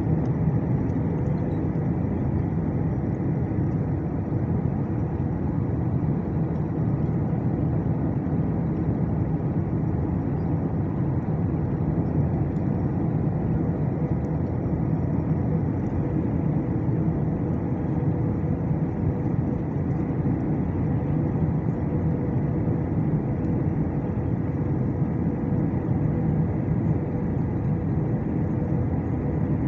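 Steady cabin noise of an Airbus A319 in flight, heard by the wing: the turbofan engines and rushing air make an even low rumble with a faint steady hum on top, during the approach.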